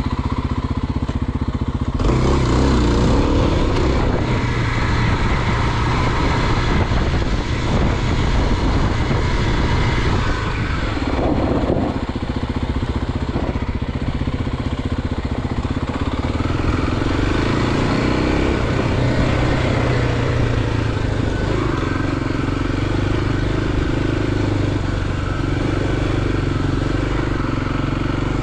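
Motorcycle engine running as the bike is ridden, its pitch shifting as it speeds up and eases off, with a brief dip about eleven seconds in.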